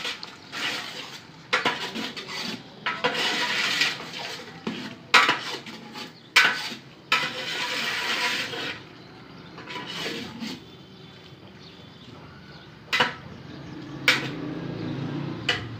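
Metal ladle stirring and scraping chicken frying in a large aluminium pot, with clanks against the pot's side. The stirring stops about nine seconds in, leaving a quieter stretch broken by a couple of sharp knocks.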